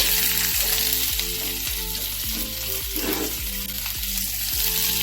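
Chopped onion sizzling steadily in hot mustard oil in a frying pan.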